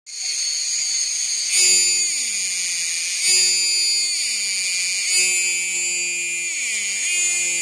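Cicada calling loudly: a continuous shrill buzz that swells about every second and a half, four times, each swell sliding into a falling tone.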